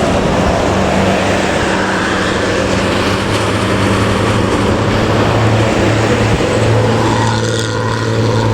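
Intercity bus engine running at a steady pace with a deep, even exhaust drone, the rumbling 'snoring' (ngorok) exhaust note, over road noise.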